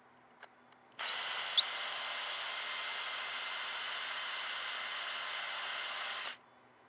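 Electric drill spinning a compressor pop-off valve's ball against its seat with valve grinding compound, lapping the seat to cure an air leak. A steady, high whirring starts about a second in, with a sharp click just after, and stops abruptly near the end.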